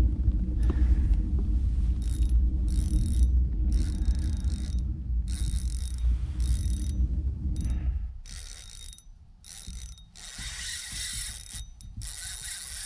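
Fishing reel drag ticking out line in repeated bursts as a big hooked redfish pulls against the bent rod. A low rumble runs underneath for the first eight seconds or so, then drops away, leaving the drag bursts clear.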